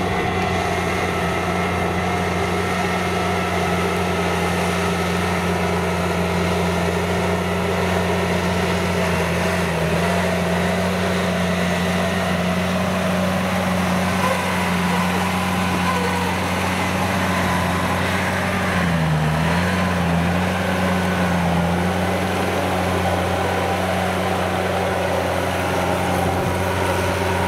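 Engine of a Kubota DC70 combine harvester refitted as a tracked rotary tiller, running steadily under load while tilling flooded paddy mud. Its pitch dips briefly about two-thirds of the way through, then recovers.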